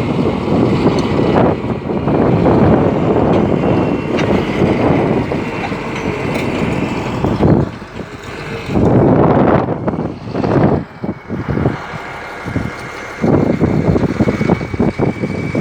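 Caterpillar D6D bulldozer's diesel engine running, its noise rough and uneven, dropping away briefly about eight seconds in and again around eleven to thirteen seconds in.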